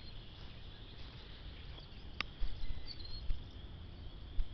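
Strong wind rumbling on the microphone, with heavier gusts buffeting it from about halfway, over a steady high chorus of crickets. One sharp click about two seconds in.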